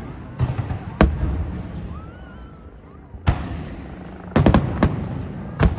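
Aerial fireworks shells bursting: sharp bangs with a rumbling echo after each, one about a second in, another past the middle, then a quick run of several bursts and a last bang near the end.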